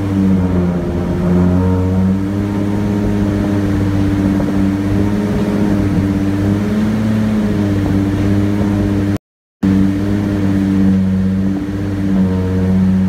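A turbocharged Nissan 350Z V6, a freshly installed replacement engine, fast-idles steadily at about 2,000 rpm just after starting. The sound cuts out completely for a moment about nine seconds in.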